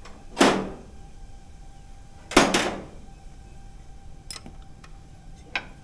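Ratchet wrench ratcheting in two short bursts, about two seconds apart, as the hydraulic pump's mounting bolts are tightened, followed by a few light metallic clicks near the end.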